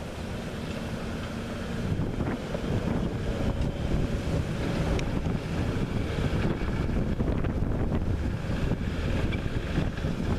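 Wind buffeting the microphone: a rumbling, gusty noise that gets louder about two seconds in, with a few faint clicks.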